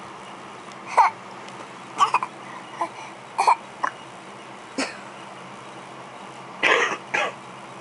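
A baby putting on a fake cough: a string of short, forced little coughs with pauses between them, about eight in all, the last one longer.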